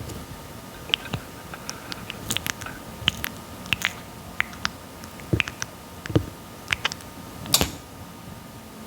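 Red-footed tortoise biting and chewing papaya, close up: a string of irregular sharp clicks and crunches as its beak bites into the fruit, the loudest near the end.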